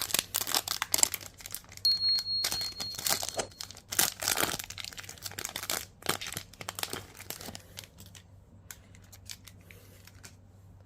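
Foil wrapper of a trading card booster pack being torn open and crinkled, then quieter rustling and light ticks as the cards are handled, from about seven seconds in.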